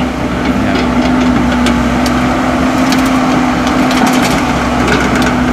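Hydraulic excavator's diesel engine running steadily under load while its bucket digs into soil, with scattered cracking and clattering of dirt and clods, busiest around the middle.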